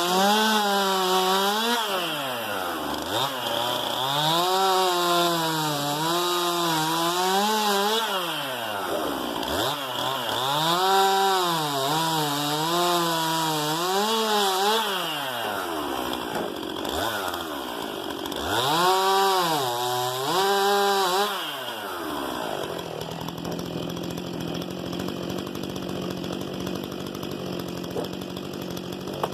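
STIHL MS 261 C-M two-stroke chainsaw run at full throttle through firewood, its pitch sagging and recovering under load and dropping away between cuts about five times. About three-quarters of the way through it settles to a steady, quieter note.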